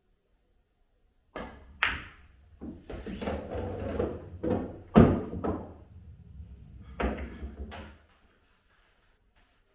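Pool balls on a pool table: a shot, then a run of sharp clicks and knocks as the balls strike, roll and are handled, over a low rolling rumble. The loudest knock comes about five seconds in.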